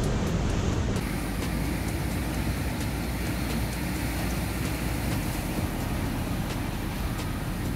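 Rough sea surf breaking on rocks, a steady heavy rush with wind rumbling on the microphone.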